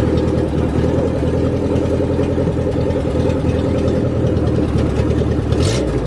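Off-road vehicle's engine running steadily at low revs, close by, with a brief hiss a little before the end.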